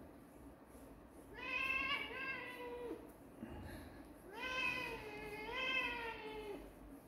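Domestic cat meowing twice, two long drawn-out meows about a second apart, the second longer and wavering up and down in pitch.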